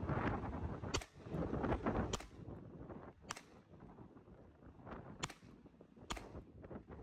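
Ruger Mark IV Lite .22 LR pistol fired five times, single shots at an uneven pace about a second apart.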